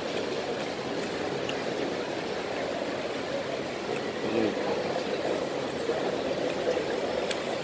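Steady background din of a hawker food centre, an even wash of noise with a faint voice briefly heard about four seconds in.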